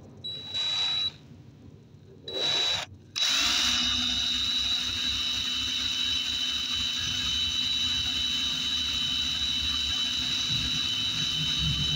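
Electric drill set to run in reverse, drilling with a thin bit into a broken bolt in a cylinder head. The motor whines in two short bursts, then runs steadily from about three seconds in.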